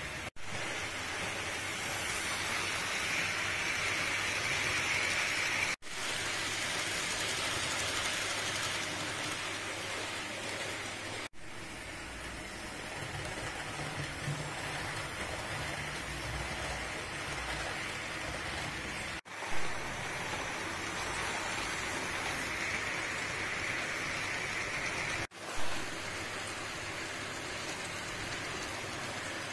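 H0-scale model trains running on the layout track, among them a set of Roco PKP EC coaches behind an electric locomotive: a steady rolling hiss of metal wheels on the rails, broken by a few brief dropouts.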